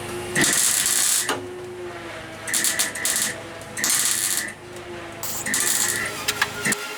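Welder laying four short tack welds into car bodywork, each a crackling burst under a second long, over the steady hum of the generator powering it.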